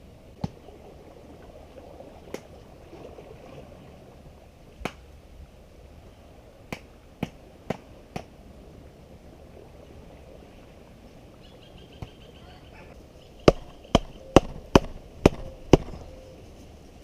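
Sharp knocks: scattered single strikes at first, then a quick run of six, about two a second, near the end, over a steady low background hiss.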